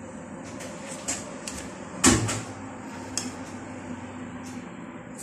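Metal spoons clinking and scraping against a batter bowl and a metal muffin tin as cupcake batter is spooned into paper liners, with a few light clicks and one louder knock about two seconds in.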